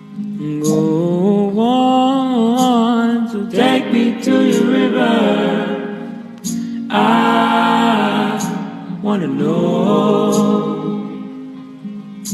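A soloist singing long wordless gliding vocal runs, gospel-soul style, in two phrases with a short break about six and a half seconds in.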